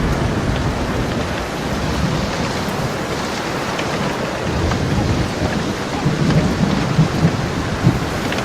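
Steady rain falling with thunder rolling low underneath, the rumble swelling about six seconds in.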